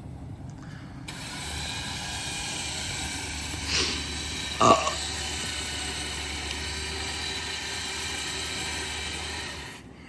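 Winch motor running steadily as it pulls the car forward, switched on about a second in and cut off just before the end. A brief sharp sound comes a little before the middle, and a louder one just after it.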